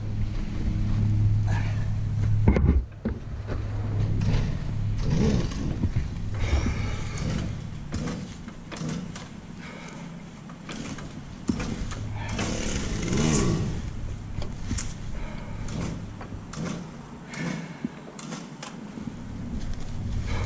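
Stump grinder's small petrol engine running, its hum steady at first and weaker through the middle. Scattered knocks and scrapes come from the machine being handled.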